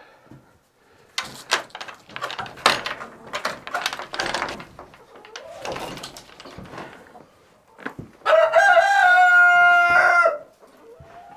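A rooster crowing once, one long call about two-thirds of the way through, after several seconds of irregular clucking and scuffling noises from the chickens.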